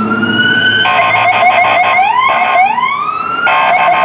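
Electronic siren of a fire department pickup truck wailing, its pitch sweeping up and then swooping up again. Twice, about a second in and near the end, a rapid choppy blaring tone cuts over the wail.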